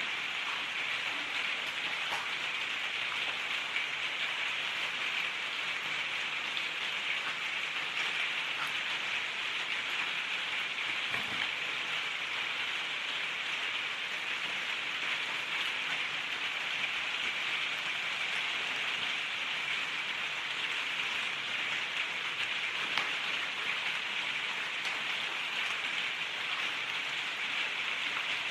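Heavy rain falling outside, a steady hiss that is pretty noisy.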